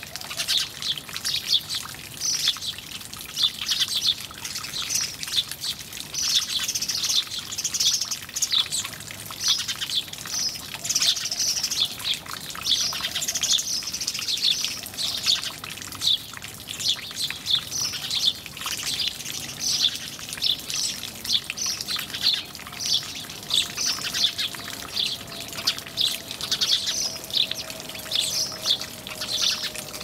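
A group of house sparrows chirping continuously, many short, quick chirps overlapping.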